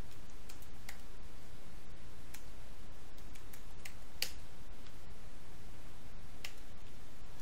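Scattered keystrokes on a computer keyboard: about a dozen light clicks at uneven intervals, the sharpest a little past halfway, over a steady low background hum.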